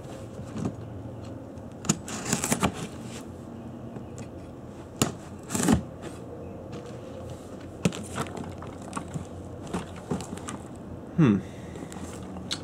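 Kitchen knife slitting packing tape on a cardboard box, with scattered taps, scrapes and crackles of the cardboard and tape as the box is handled and turned over.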